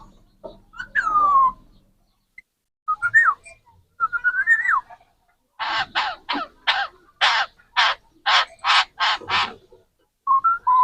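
A pet parrot giving a few short whistled calls that slide up and down in pitch, then a run of about ten harsh squawks, then a couple of short whistles near the end.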